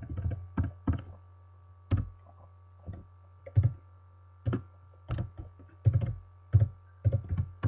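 Single key presses on a computer keyboard, about a dozen separate clicks at irregular intervals, over a steady low hum.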